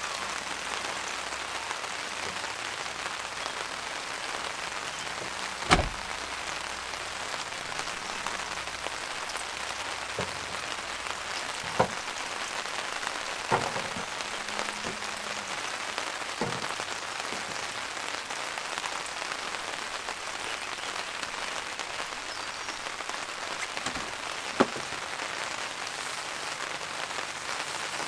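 Steady rain falling on a tarp overhead, with a few sharp taps standing out, the loudest about six seconds in and another near the end.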